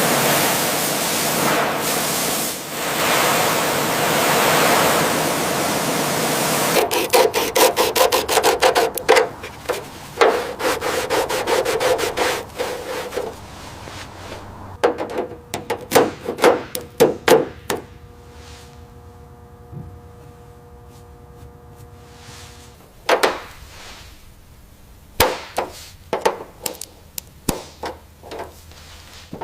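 Steady abrasive rubbing for about the first seven seconds, then a fast run of sharp scraping strokes and a scatter of knocks and taps, with a steady hum in the middle stretch: hand work with abrasives and tools on a car body.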